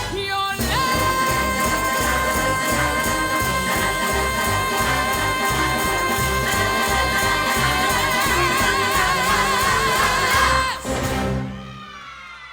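Show-tune recording: a woman's voice holds one long final note over a brassy band with a steady beat, the note starting to waver near the end, and the music stops about eleven seconds in.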